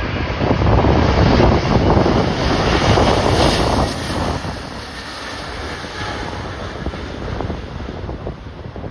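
Storm-force wind buffeting the microphone, a rough rumbling gust that is loudest for the first few seconds and then eases off.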